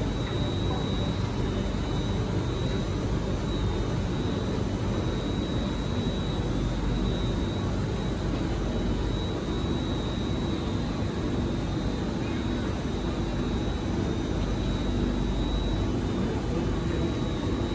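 Steady low rumble of a Singapore MRT train, with a thin, constant high whine over it.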